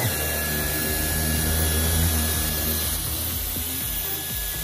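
Dyson V10 cordless stick vacuum running with its mini motorised brush tool: a steady rush of suction with a high, even motor whine.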